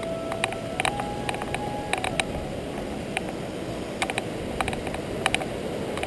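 A rocky mountain stream rushing steadily under an irregular rattle of clicks and knocks as the camera moves over a loose gravel and rock track. A thin steady squeal sounds until about two seconds in.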